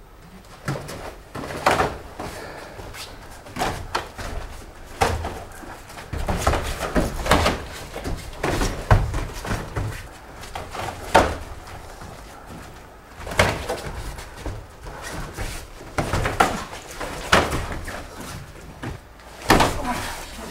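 Karate sparring: many sharp thuds and slaps at irregular intervals, from feet stamping and sliding on the foam mats and from punches and kicks landing on gi and head guards.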